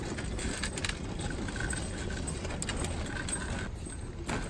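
Wheeled ambulance stretcher rolling over concrete, its metal frame and buckles rattling and jingling, with a sharp clatter near the end.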